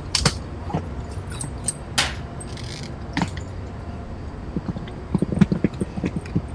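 Luggage being picked up and handled: a few separate sharp clicks and knocks, then a quick run of soft knocks near the end, over a steady low rumble.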